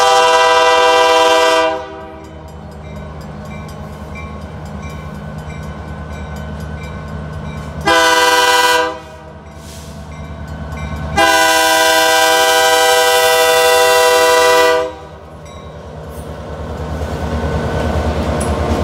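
Freight diesel locomotive's multi-chime air horn blowing the grade-crossing signal: a long blast ending about two seconds in, a short blast about eight seconds in, then a long blast from about eleven to fifteen seconds. After the horn the locomotive's diesel engine and the train's rumble grow steadily louder as it reaches the crossing.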